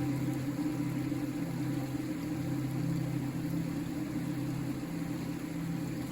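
River water flowing, a steady rushing with a deep, even rumble.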